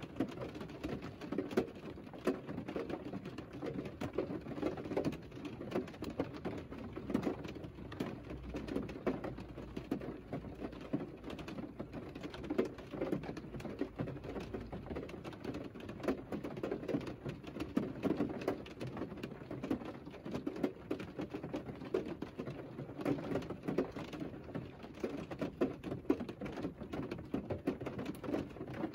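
Rain falling steadily on the roof and windscreen of a parked Mercedes, heard from inside the closed cabin as a dense, even stream of small drop hits.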